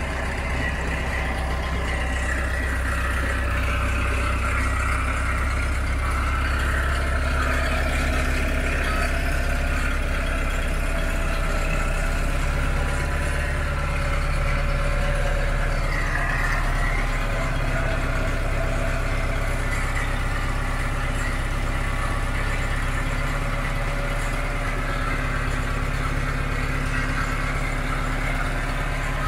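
Crawler loader's engine running steadily while the machine creeps forward on its tracks.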